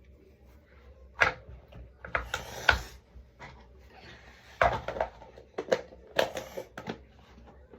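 Sticky homemade slime being squeezed, poked and pulled by hand, giving irregular sharp clicks and short crackly pops.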